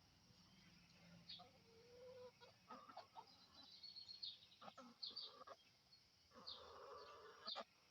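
Chickens clucking and chirping faintly in short, scattered calls, busier for about a second a little after the middle.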